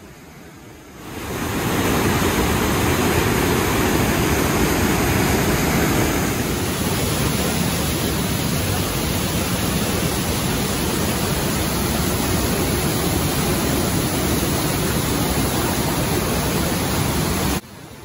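The Rhine Falls' water rushing: a loud, steady noise of falling water that fades in about a second in and cuts off suddenly near the end.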